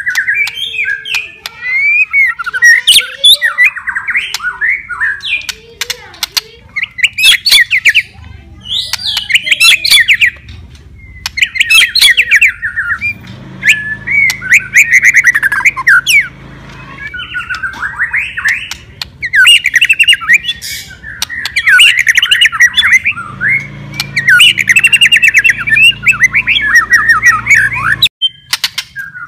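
White-rumped shama singing a loud, varied song: quick phrases of whistles, trills and harsh chattering notes following one another with only short pauses.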